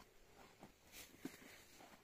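Near silence, with a few faint soft knocks and rustles.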